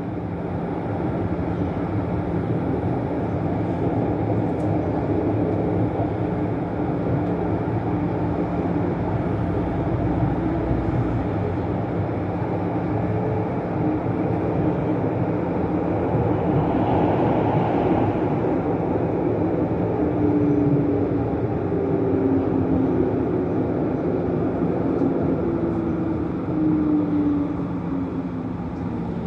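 Tram running along its track, heard from inside the car: a steady rumble of wheels on rails with a low motor hum. A faint tone sinks slowly in pitch over the last several seconds.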